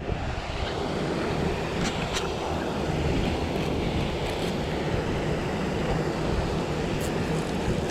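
Wind buffeting the microphone, a steady rushing noise that flutters in strength, with a few faint clicks about two seconds in and again near the end.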